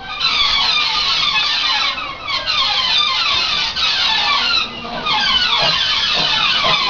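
Steel train wheels squealing and screeching against the rails as the coaches run around a curve, heard loud from an open carriage window, easing briefly about two seconds in and again near five seconds.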